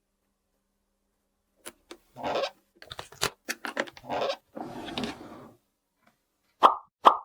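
Plastic toy parts being handled: a few sharp clicks, then scraping and rustling for about four seconds. Near the end come two short pops that drop in pitch.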